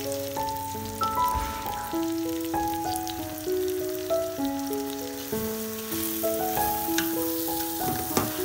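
Split red lentils sizzling and crackling in hot oil in a metal pot as they are stirred, under background music with a melody of held notes.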